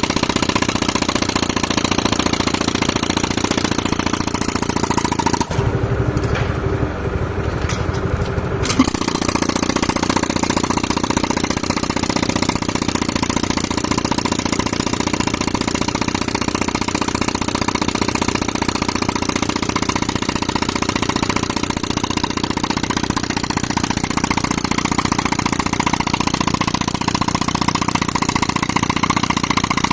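Pneumatic rock breaker hammering rapidly and continuously, fed by a tractor-driven air compressor whose engine runs underneath. The hammering stops for about three seconds around six seconds in, leaving the engine running alone, then starts again with a sharp knock.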